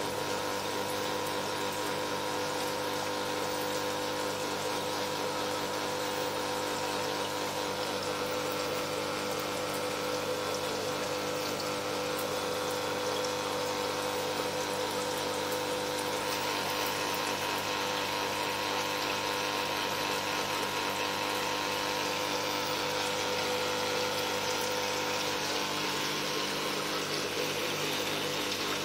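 Koi tank's water pump running with a steady hum, while water splashes and trickles continuously from the filtration into the tank.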